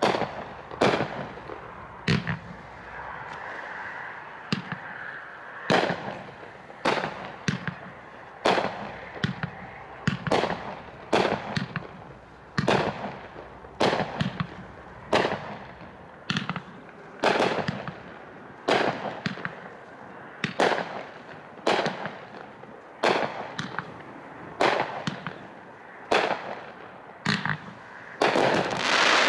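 Hot Shot "Eternity" 500-gram multi-shot fireworks cake firing shot after shot: sharp bangs of launches and aerial bursts, about one to two a second without a break, with crackle between them.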